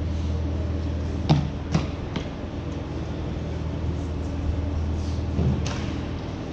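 Ice hockey play heard from rinkside: sharp clacks of sticks and puck, three in quick succession a little over a second in and another near the end, over a steady low hum of the arena.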